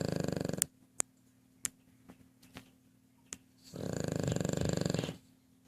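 Snoring, with a rapid rattle in each breath: one snore ends about half a second in and another comes about four seconds in, lasting about a second and a half. A few sharp clicks fall in the gap between them.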